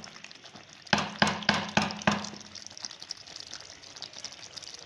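A spoon scraping and knocking against a cooking pot in about five quick strokes, roughly four a second, while chicken, potatoes and spice masala are stir-fried; the strokes stop about two seconds in, leaving a faint sizzle of frying.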